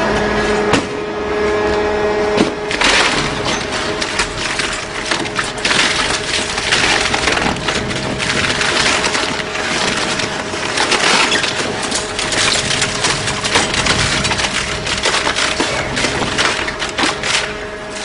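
Industrial twin-shaft shredder's rotating cutter discs tearing through a stacked block of board, with dense crackling and crunching over the machine's steady hum. The crunching grows louder a few seconds in, once the block is drawn into the cutters.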